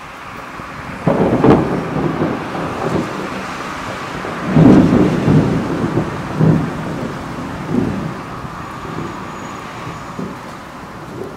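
Thunder rumbling in several rolls over the steady hiss of a heavy summer downpour, the loudest rolls about a second in and about four and a half seconds in.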